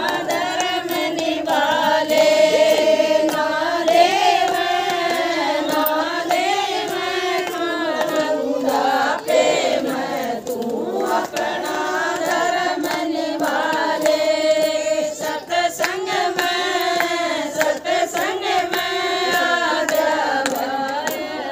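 A group of women singing a Haryanvi bhajan together in unison, with hand clapping along.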